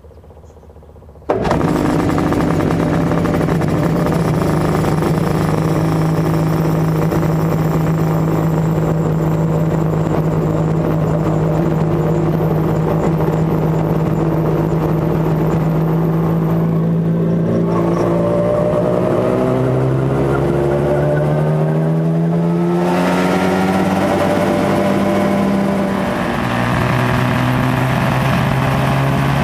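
The Mosquito XE helicopter's two-stroke engine catches suddenly about a second in and runs at a steady note. From about 19 seconds its pitch rises over several seconds as the engine and rotor are brought up in speed, then it steadies at a higher note near the end.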